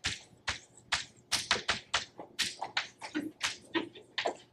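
Chalk writing on a blackboard: quick, irregular taps and short scratches, about five strokes a second.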